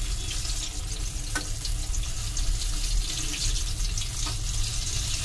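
Batter-coated apple slices deep-frying in hot oil in an aluminium kadai: a steady sizzling hiss, with a couple of light clicks as a metal spoon turns the slices, over a steady low hum.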